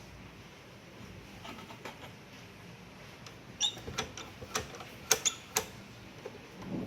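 Light scratching and handling of small parts on a workbench, with a quick run of about eight sharp clicks and taps in the middle.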